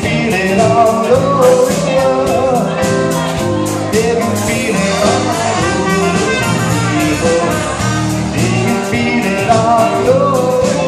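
Live band playing with a steady drum-kit beat, hollow-body electric guitar, trumpet and keyboard, with a lead vocal over it.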